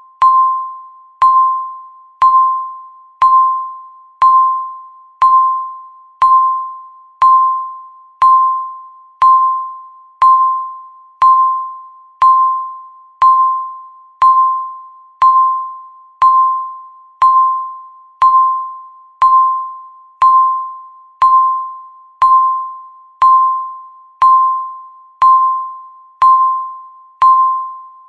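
Countdown timer beep sounding once a second, each one counting off a second left on the timer. Every beep is the same single pitched ding that starts sharply and fades away, in a steady even rhythm.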